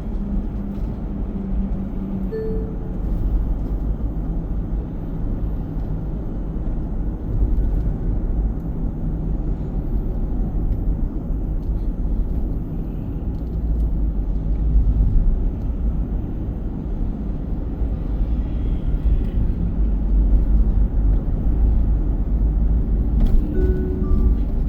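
Car being driven in city traffic, heard from inside the cabin: a steady low rumble of road and engine noise that rises and falls slightly with the driving.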